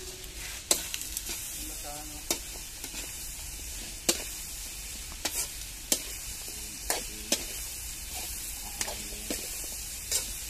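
Chicken feet sizzling as they fry in a wide metal wok over a wood fire, with a steady hiss. A metal spoon stirs them, clinking sharply against the pan about eight times at uneven intervals.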